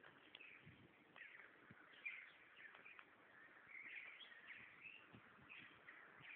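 Faint chirping of birds, a continual string of short calls.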